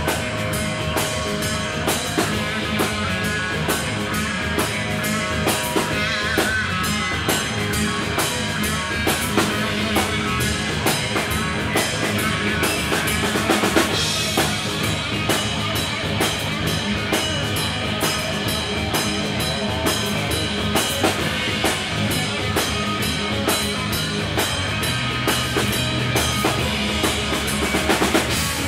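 Live rock band playing amplified: electric guitars, bass guitar and drum kit keeping a steady beat.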